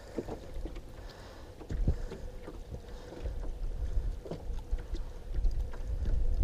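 Water sloshing against the side of a small jon boat, with a few light knocks and splashes as a musky is handled in a landing net at the boat's side.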